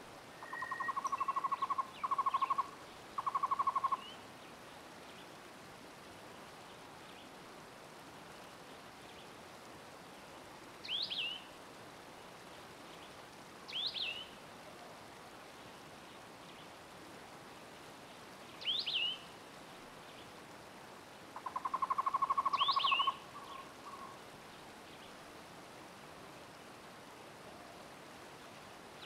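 Forest ambience with wild bird calls: a rapid low trill three times in the first few seconds and once more about two-thirds of the way through, and four short, sharp chirps spaced a few seconds apart over a faint steady background hiss.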